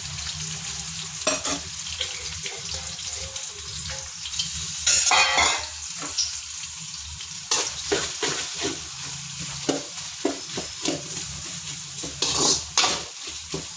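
Sliced onions frying in hot oil, sizzling steadily, with a spoon scraping and stirring them around the pan in short strokes; two louder bursts come about five seconds in and near the end.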